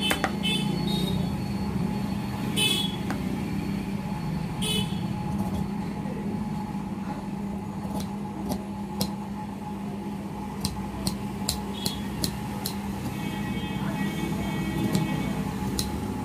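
Large steel tailor's shears cutting along a paper pattern: repeated snips and sharp blade clicks, coming faster in the second half, over a steady low hum.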